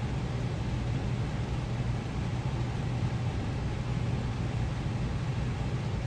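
Steady low rumble and hum inside a 1950s Budd stainless-steel dome car of a passenger train, with no separate knocks or clicks.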